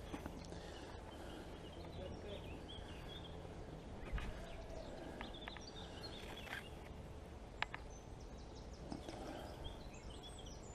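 Faint outdoor background noise with small birds chirping now and then, and a couple of sharp clicks.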